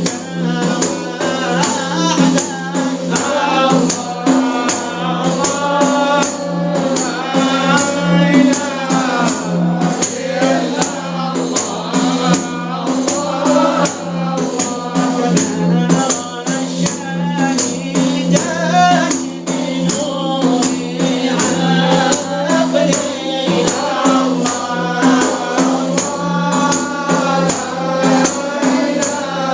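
Sufi devotional chant (inshad) in Arabic: sung melody with voices joining in, over a steady hand-struck frame-drum beat.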